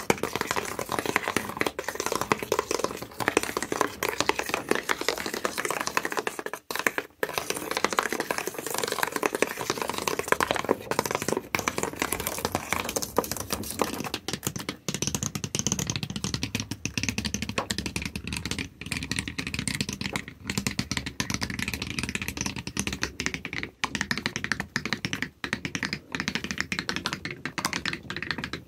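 Rapid scratching and tapping with the backs of fingernails, a dense stream of quick clicks like fast typing with a few brief pauses. About halfway through the texture changes to a lower, fuller scratching.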